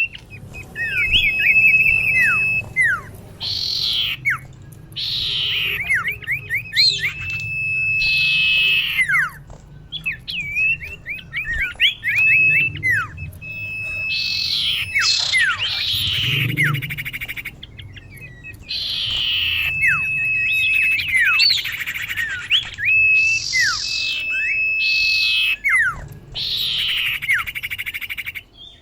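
Female common iora calling. Phrases of long, steady whistled notes and quick downward-sliding chirps alternate with harsher descending notes and repeat every few seconds. This is the call a female gives to draw in males, used here as a lure.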